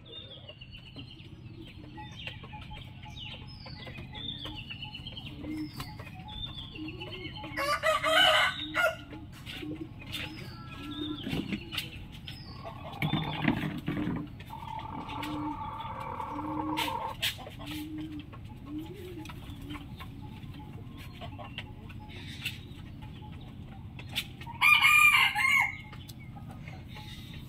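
A rooster crowing: two loud crows, one about eight seconds in and another near the end, with softer short calls between.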